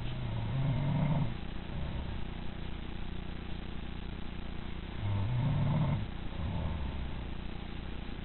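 A woman snoring in her sleep: two low, rumbling snores about five seconds apart, the second followed by a weaker one.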